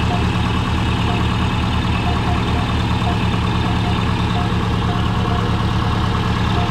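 Turbocharged Subaru Forester's flat-four boxer engine idling steadily, with an exhaust leak near the turbos that can still be felt.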